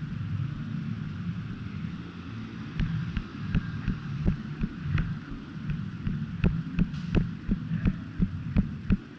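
Irregular soft thumps and clicks, roughly two or three a second from about three seconds in, over a steady low rumble.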